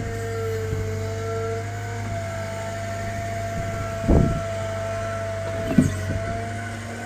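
CAT M314 wheeled excavator's diesel engine running steadily with a steady hydraulic whine as the arm lifts and swings a chunk of concrete foundation. Two heavy knocks, about four and six seconds in, as the concrete is set down on the rubble pile; the first is the louder.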